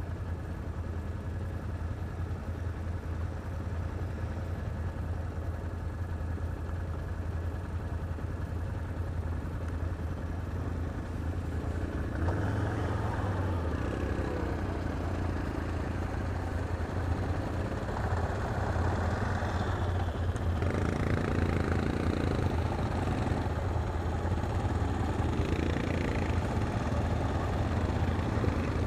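ATV engines idling. About twelve seconds in, the engines rev up and get louder, with more revving around eighteen and twenty-one seconds as the quads move through the mud.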